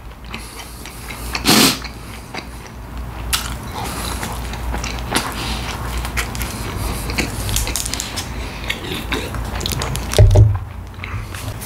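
A person chewing McChicken sandwiches up close, with a steady run of irregular wet clicks and smacks. There is a louder bite or crunch about a second and a half in, and a low thump near the end.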